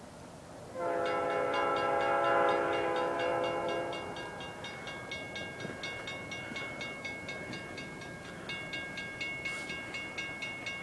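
A distant EMD GP40-2W locomotive horn sounds one long blast, starting about a second in and lasting about three seconds. A grade-crossing warning bell starts ringing at the same moment and keeps up a rapid, even clanging.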